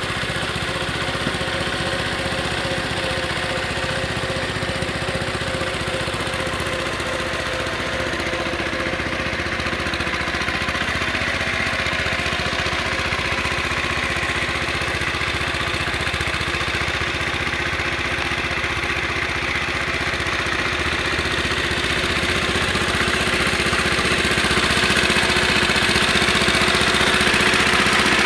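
Case 1816 skid steer's engine running steadily, growing louder over the last few seconds.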